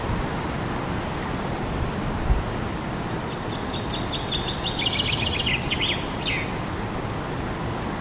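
Wind buffeting the microphone as a steady rushing noise, with a brief low bump about two seconds in. Midway a small songbird sings a quick run of short, high notes lasting about three seconds.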